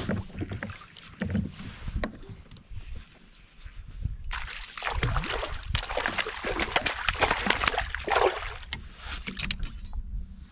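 A hooked fish splashing and thrashing at the water's surface beside a kayak. It starts about four seconds in and goes on for several seconds, with a few dull knocks before it.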